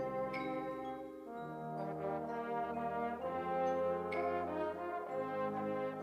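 Police wind band playing a brass-heavy piece, with trombones and horns holding full chords that change every second or two.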